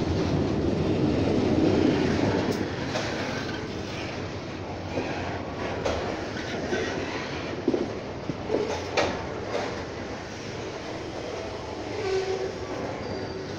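Train rolling along the track: a steady rumble of wheels on rails, loudest in the first couple of seconds, with scattered sharp clacks in the middle as the wheels cross rail joints.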